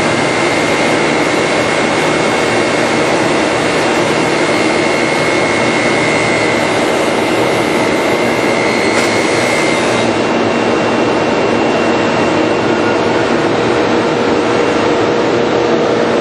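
Combination jointer-thicknesser woodworking planer running: a loud, steady machine noise with a high whine that stops about ten seconds in, leaving a lower steady hum.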